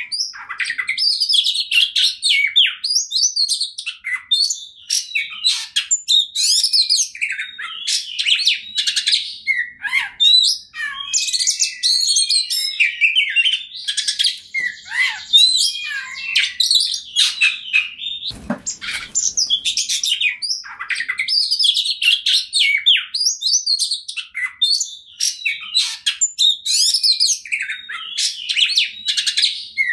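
Oriental magpie-robin singing a long, unbroken, rapid song of varied whistles, chirps and trills. A brief low thump comes about two-thirds of the way through.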